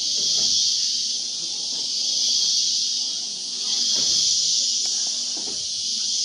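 Steady high-pitched chorus of rainforest insects, swelling and easing every couple of seconds.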